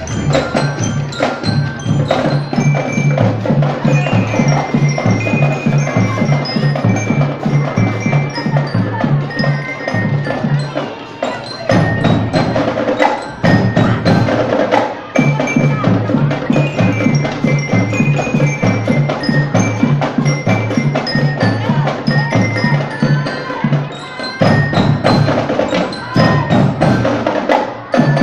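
Marching band playing: drums keep a dense, steady beat under a bright melody on mallet bells such as a bell lyre. The playing breaks off briefly about 11 seconds and 24 seconds in.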